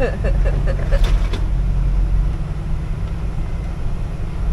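Isuzu truck driving slowly, heard from inside the cab as a steady low drone. In the first second or so, overhanging branches brush and scrape along the cab, giving a few short squeaks and a couple of sharp knocks.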